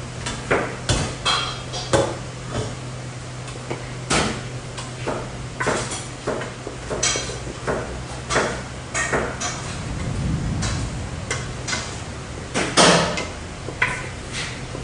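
Kitchenware clattering: dishes, pots and utensils knocking and clinking in irregular sharp hits, the loudest near the end, over a steady low hum.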